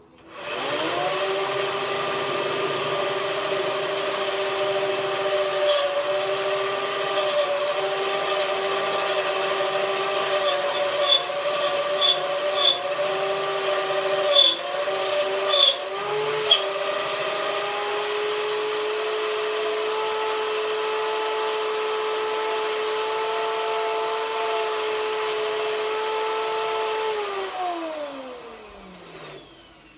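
Handheld electric power tool spinning up and working on the steel rivets of a vehicle chassis frame. Its whine dips in pitch again and again under load, with scattered sharp clicks. It then runs steady at a slightly higher pitch, and near the end it is switched off and winds down with a falling whine.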